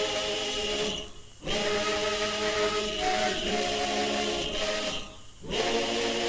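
Abkhazian folk choir singing a cappella in long held chords of several voices, each phrase breaking off twice for a moment before the next.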